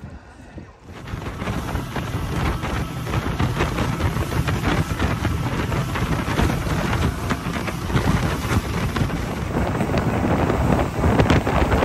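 Wind buffeting the microphone aboard a small outboard motorboat under way, with water rushing past. The buffeting comes in about a second in, after a quieter moment.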